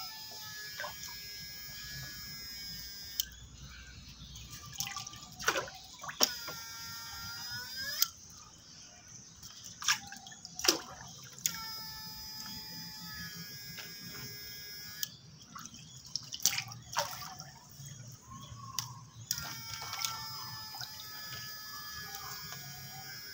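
High electronic whine from a homemade transistor PAC fish-shocker circuit powering electrodes in pond water. The whine cuts out and restarts several times, its pitch bending as it comes back, with sharp clicks and water drips in the gaps.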